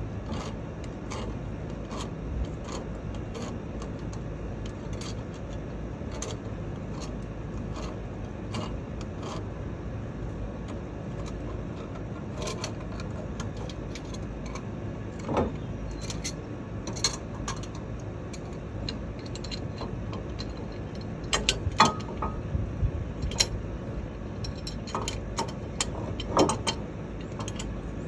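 A pipe wrench clicking and clanking against a truck's front brake caliper as the caliper piston is squeezed back in. Scattered light metal clicks, with louder clusters of clanks in the second half, over a steady low background hum.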